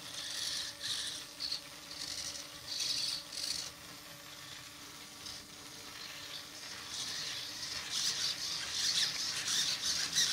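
Digital metal-gear hobby servos in a small robot arm buzzing and whining in short stop-start bursts as the arm's joints move, nearly continuous over the last few seconds, with a faint steady hum underneath.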